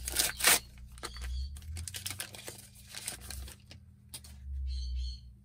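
Trading card pack wrapper crinkling and tearing as packs are opened and cards handled, with several sharp crackles in the first second, then lighter rustling that dies down after about three and a half seconds.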